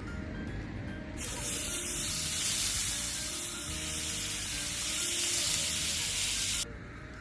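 Meat sizzling in a hot skillet: a loud hiss that starts about a second in and cuts off suddenly near the end.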